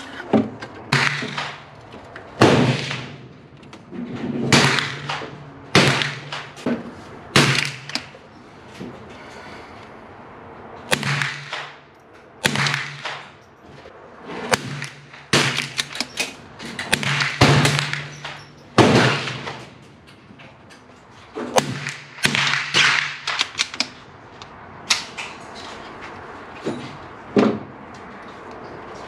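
Repeated gunshots and sharp knocks at a shooting range, irregularly spaced about every one to two seconds, some with a short ringing tail.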